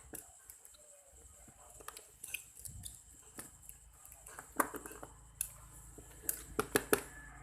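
Scattered small clicks and taps of a mobile phone's plastic case and parts being handled and taken apart by hand. The clicks grow sharper and closer together in the second half, over a faint low hum.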